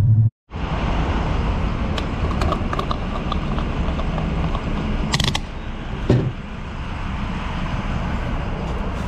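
Steady road-traffic noise at a gas station, with a few small clicks and a short, sharp rattle about five seconds in as a vehicle's fuel cap is unscrewed.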